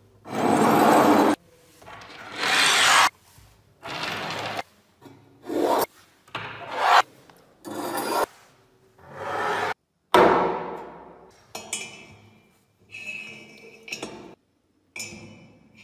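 Restored brass blowtorch parts and iron handles being slid and scraped across a wooden tabletop, one after another in separate swishes of about a second each. From about ten seconds in come shorter metallic clinks and scrapes with a little ringing as the brass burner assembly is fitted onto the brass tank.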